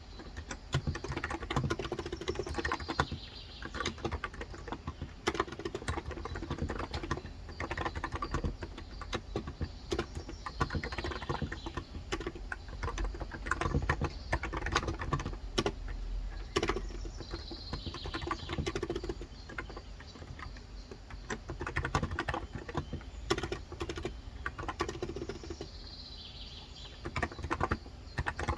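Fast, continuous typing on a COX Endeavor electro-capacitive (Topre-style) keyboard with light 35 g switches: a dense stream of soft keystrokes with no pauses.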